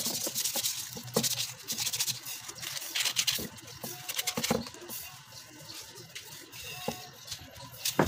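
Sandpaper rubbed by hand over a carved ebony wood mug in quick, scratchy strokes, ending with a knock.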